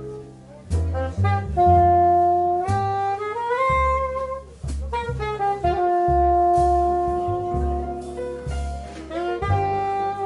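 Live jazz quartet: a saxophone plays a solo melody with long held notes, over piano, double bass and drums.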